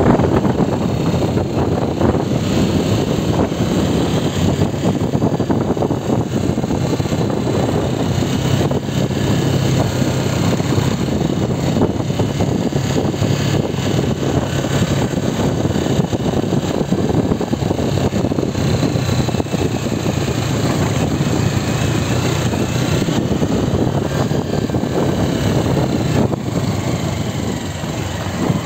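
Honda CG Titan 125 KSE motorcycle's single-cylinder four-stroke engine running steadily while riding along a dirt road, heard through a handlebar-mounted phone's microphone.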